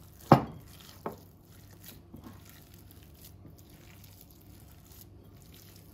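Hands mixing raw chicken mince in a ceramic bowl, quiet and soft. A sharp knock comes just after the start, and a softer one about a second in.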